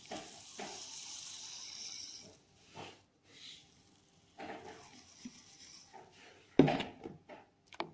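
Water poured in a thin stream into frothy blended gotu kola juice in a plastic container, a steady hiss for the first couple of seconds, then fainter splashing. A single sharp knock about two-thirds of the way through.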